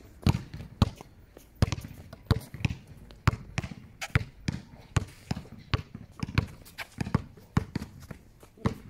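Basketball being dribbled on a hard court: a steady run of sharp bounces, about two a second.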